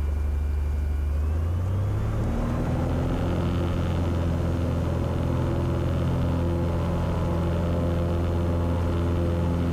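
Cessna 182's piston engine and propeller throttling up for the takeoff roll: the engine note rises about two seconds in, then holds steady at full power.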